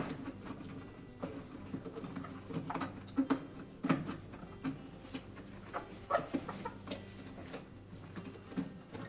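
Rubber door bellows of a front-load washer being stretched and worked by hand into place, giving irregular short squeaks and rubbing sounds.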